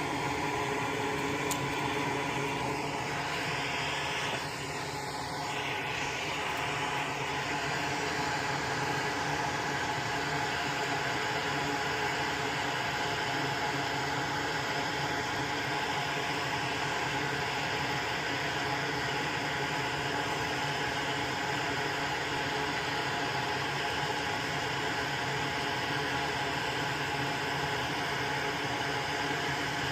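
Steady whir of a fan or small motor, running without a break, with a brief slight dip about four to five seconds in.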